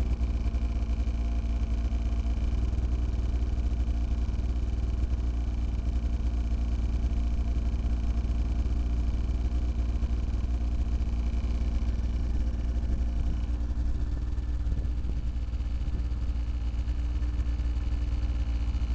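Snowmobile engine idling steadily with a deep, even rumble, alongside a thin high whine that stops about two-thirds of the way through.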